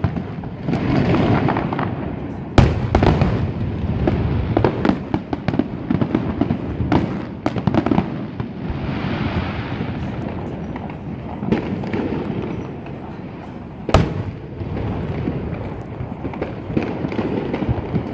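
Aerial fireworks display: shells bursting in a continuous run of booms and crackling, with two sharp loud bangs standing out, one a few seconds in and one about three-quarters of the way through.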